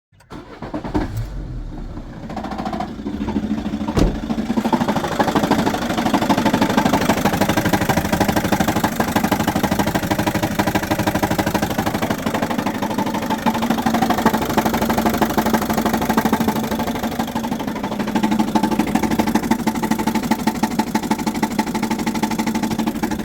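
Peugeot Expert 2.0 HDi four-cylinder diesel engine idling with a rapid, steady knocking, the knock that the owner hears at idle and that goes away when the engine is revved. A single sharp click about four seconds in.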